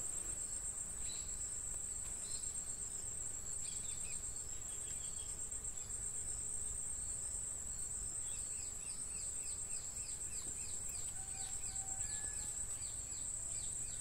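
A steady, high-pitched, pulsing insect trill, with a quick run of short falling chirps from about eight to twelve seconds in.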